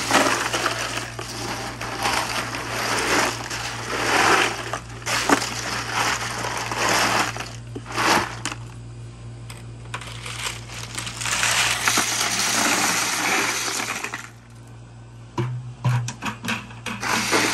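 Ice crunching and rattling in a cooler as pieces of wild boar meat are pushed around in it, in several bursts of a few seconds each, then a few scattered clicks near the end.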